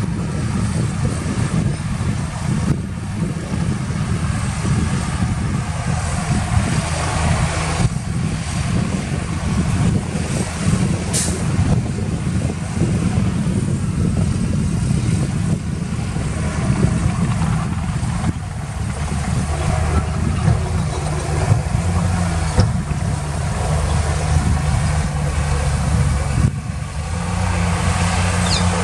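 Heavy diesel earthmoving machines running steadily under load, a dump truck and a bulldozer working. The engine note shifts a few times, and there is one brief, sharp high sound about eleven seconds in.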